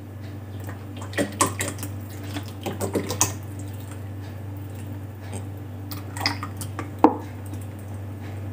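Kitchen cooking sounds: utensils clinking and knocking against a pot or pan in a few short clusters, the loudest single knock near the end, over a steady low hum.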